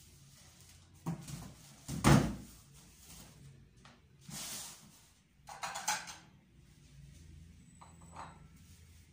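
Empty cardboard moving boxes being handled and set down: a couple of hollow thumps, the loudest about two seconds in, followed by scraping and crinkling rustles of cardboard and packing material.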